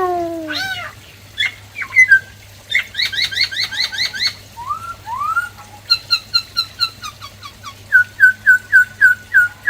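Black-throated laughingthrush singing a varied song. It opens with a drawn-out falling call, then gives a fast trill of repeated chirps, rising slurred whistles, and a steady series of short notes at about three a second near the end.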